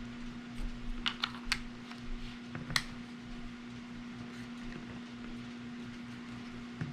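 A few light clicks and taps as the two halves of a clip-on accessory rail are fitted onto a Glock 43X pistol frame and trigger guard: a quick run of three or four clicks about a second in, then one sharper click near three seconds. A steady low hum runs underneath.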